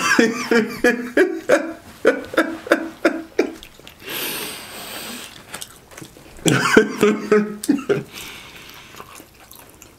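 Men laughing in runs of short, rapid ha-ha pulses, two fits with a breathy exhale between them.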